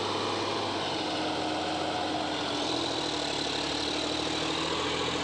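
John Deere 5405's three-cylinder turbo diesel engine running steadily under load at about 1800 rpm, pulling a 20-disc harrow in four-wheel drive.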